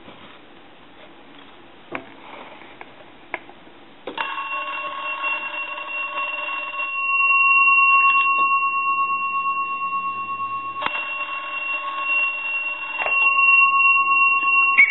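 A steady, high electronic tone starts with a click about four seconds in and holds, with several sharp clicks before and during it.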